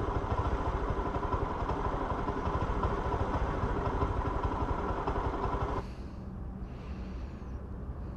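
Motorcycle engine idling steadily, with a constant whine. About six seconds in the sound drops suddenly to a quieter low rumble.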